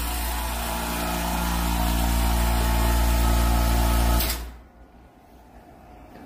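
The vacuum-forming machine's electric vacuum pump running with a steady motor hum and a hiss, then shutting off abruptly about four seconds in.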